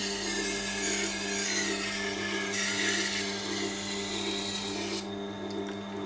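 Knife blade grinding against the turning wet grindstone of a Tormek sharpener, a rough scraping over the machine's steady motor hum. The scraping stops about five seconds in as the blade comes off the stone, and the motor keeps running.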